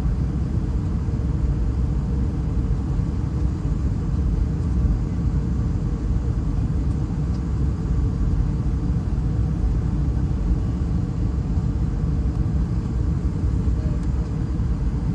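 Airbus A320-211 cabin noise: a steady low rumble from the aircraft, with no distinct events or changes.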